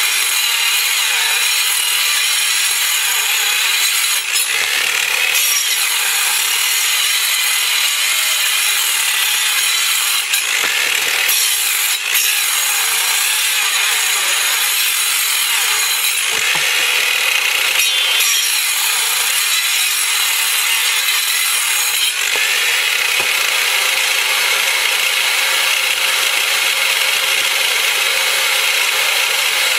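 Bosch handheld circular saw, mounted blade-up in a homemade saw table, running and cutting through a hard log that is turned against the blade. The blade noise is loud and steady, with a few brief dips, and in the last part a steady low hum joins in.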